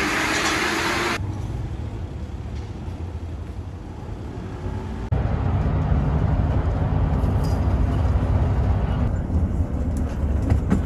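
Steady low rumble of a vehicle running, with faint voices, changing abruptly about a second in and again about five seconds in, where it grows louder.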